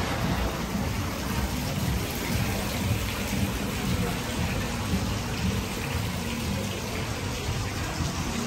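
Steady splashing and running of water from a garden water feature.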